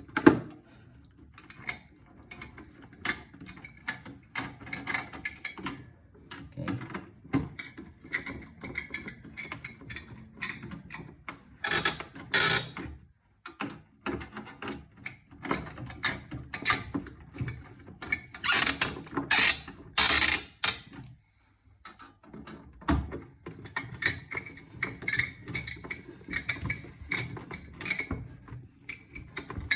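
Screws being driven in with a hand screwdriver: fine, rapid clicking with handling noise on the case, and a few louder bursts about midway.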